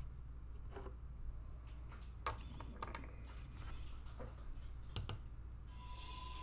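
Light clicks and taps as a kyber crystal prop is lifted off an RFID reader and the gear is handled on a workbench. Near the end a steady electronic tone with a hiss comes on from the lightsaber sound board's small speaker as the board powers up and its LEDs light.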